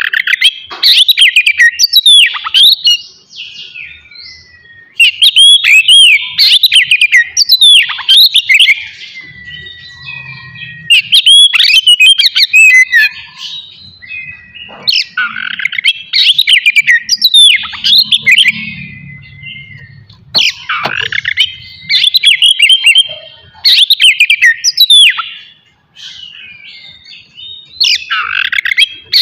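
Oriental magpie-robin singing loudly in repeated bursts of quick, sweeping whistled notes, each burst lasting a few seconds with short pauses between them.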